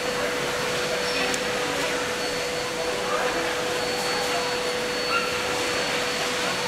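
Steady hiss and a constant hum filling a large indoor hall, with faint indistinct voices in the background.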